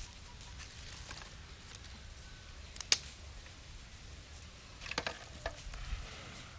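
Dry twigs snapping and crackling in a small wood fire being fed in a blackened pan: one sharp crack about three seconds in and a cluster of cracks around five seconds, over a low steady rumble.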